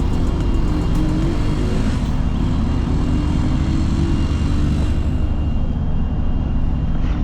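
Steady low rumble of road traffic running along a busy highway.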